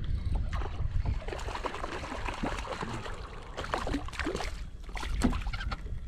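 Water splashing and sloshing beside a kayak as a hooked fish is fought at the surface and brought alongside, in irregular short splashes, with a louder one about five seconds in. Wind rumbles on the microphone in the first second or so.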